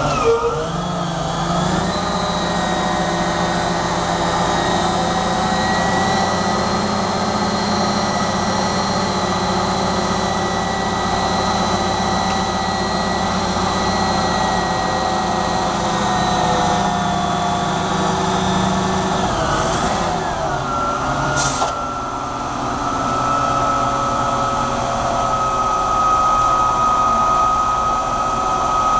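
Propane-fuelled engine and hydraulics of a Hoist F400 heavy-capacity forklift running steadily, with a sustained whine over the engine note. The running note changes about twenty seconds in, with two short high hisses.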